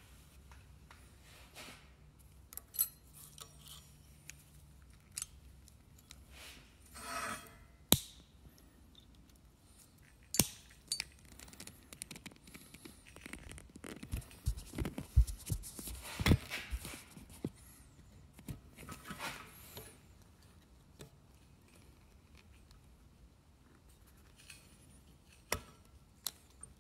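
Scattered metallic clicks, clinks and scrapes of a hand tool and the Duroflex joint being worked into a control-arm end on a steel workbench. The joint is not yet fully seated. There are a few sharp clicks in the first ten seconds, and a run of duller knocks and rattles about halfway through.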